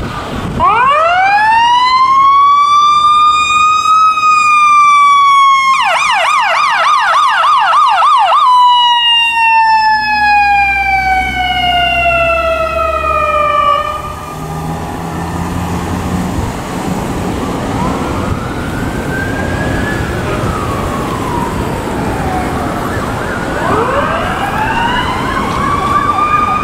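Emergency vehicle siren: it winds up in a rising wail, switches to a fast yelp for a couple of seconds, then falls steadily in pitch. Fainter sirens sweep up and down farther off, and a new wail rises near the end.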